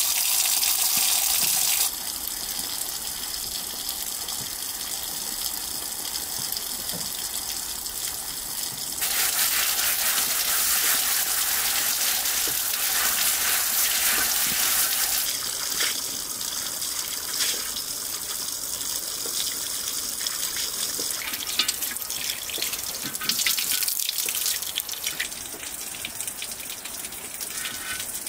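Water gushing from an outdoor tap, then a round black iron griddle plate being scrubbed and rinsed under it, with the water louder again in the middle and many short scratchy scrubbing strokes in the second half.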